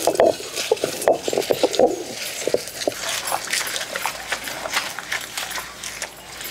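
A hand scraping and pushing grated coconut, roasted gram and dried red chillies around the stone basin of a traditional grinding stone, with many small scrapes and clicks. A few short, low, louder sounds come in the first two seconds.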